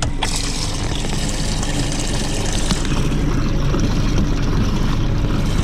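Water churning and sloshing in a boat's live well as it is stirred by hand to revive a freshly caught trout, over a steady low engine hum.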